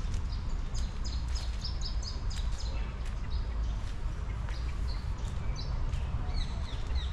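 Birds chirping, many short high notes coming several a second, over a steady low rumble.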